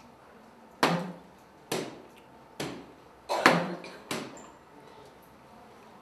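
Soft-tip darts striking electronic dartboards: a series of sharp thuds about a second apart, the loudest about a second in and about three and a half seconds in.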